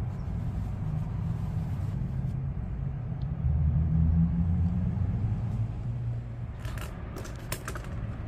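A steady low rumble, louder for a moment in the middle, then a few sharp clicks and knocks near the end as engine-bay parts are handled.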